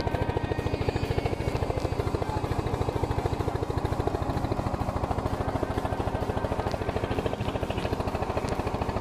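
A boat engine running with a rapid, even chugging beat that holds steady throughout.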